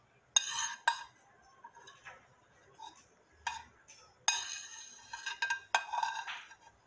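Kitchen utensils and dishes clinking: about five sharp metallic clinks, each ringing briefly, spaced out over several seconds.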